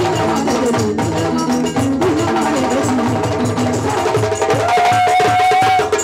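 West African percussion ensemble playing: hand drums keep a dense, steady rhythm under a wavering melodic line, and near the end a single high note is held for about a second.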